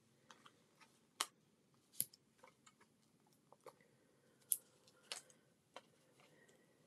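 Faint, scattered clicks and taps of small paper die-cut pieces being handled and set down on a card front, with a few sharper ticks among them.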